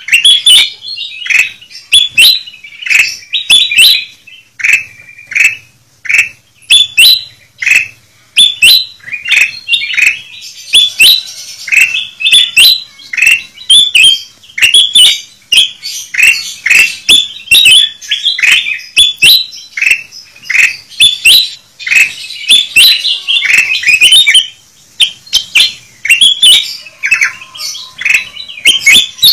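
Ruby-throated bulbuls (kutilang emas) calling loudly and busily: a dense, almost unbroken stream of short, sharp chirps and quick warbled phrases, played as a lure call for wild birds of the same kind.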